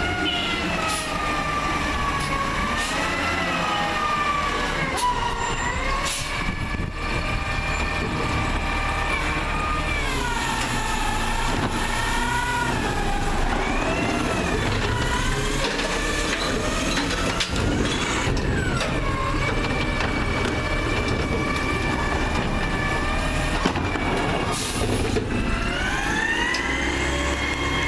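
CNG-powered Peterbilt 320 garbage truck with a McNeilus ZR automated side-loader body, running as it creeps along the curb and works its arm. A high whine rises and falls in pitch throughout, with a few sharp clicks.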